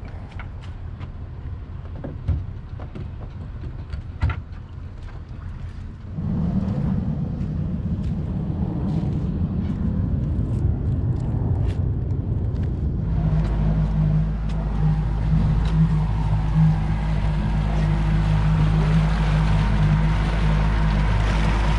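First scattered clicks and knocks of gear being handled aboard a boat, then from about six seconds in the steady rumble of a vehicle driving on a road. About thirteen seconds in it changes to a Yamaha 115 outboard motor running steadily with the boat under way, its even engine hum over water washing in the wake.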